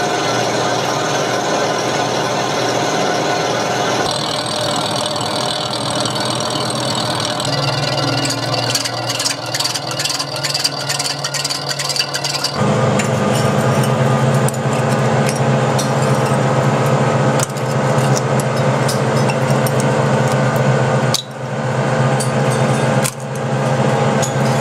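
Large Berry metal lathe running and turning the crankcase of an Alvis radial aero engine, its drive giving a steady mechanical hum. About a third of the way in the cutting tool sets up a rapid clatter, and from about halfway the hum turns louder and deeper.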